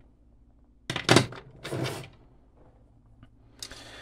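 Handling noise of objects on a workbench: a couple of loud clunks and scrapes about a second in, then a short scraping hiss near the end.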